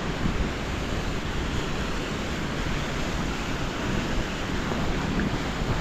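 Strong wind blowing and buffeting the microphone in a steady, gusty rush with a heavy low rumble.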